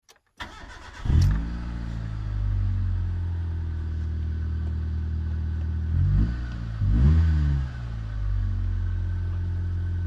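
Car engine cranked by the starter and catching about a second in with a rev, then idling steadily. It is blipped twice in quick succession, about six and seven seconds in.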